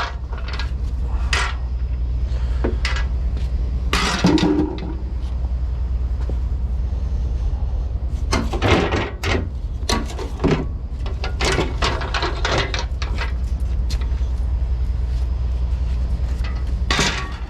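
Repeated knocks, clanks and rattles of hand work at a semi truck's battery box, over a steady low hum.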